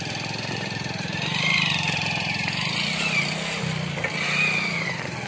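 Motorcycle engine running, its revs rising and falling twice: once about a second in and again near the end.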